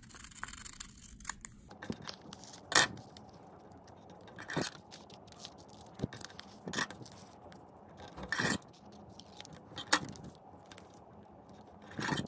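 Steel scissors cutting plain printer paper, with paper rustling and handling and sharp snips and clicks every second or two.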